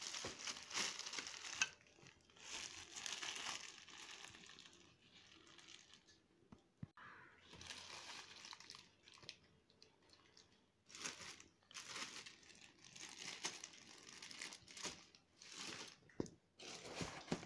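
Plastic packaging crinkling and rustling in irregular bursts, with cardboard box flaps being shifted, as wrapped items are handled and pulled out of a box.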